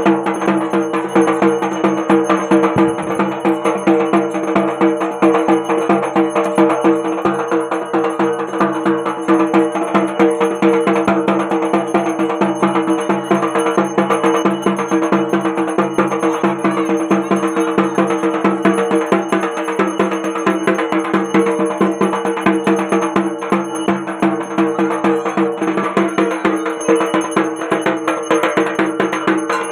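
Rhythmic percussion music with ringing bells, a fast, unbroken beat playing for the dhunuchi (incense burner) dance.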